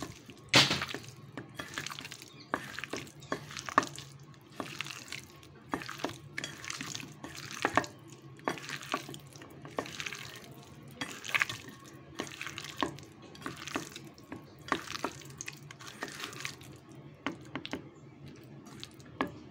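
A bare hand squishing and turning chicken pieces in a thick yogurt-and-spice marinade in a steel bowl: irregular wet squelches and slaps about every half second. A steady low hum runs underneath.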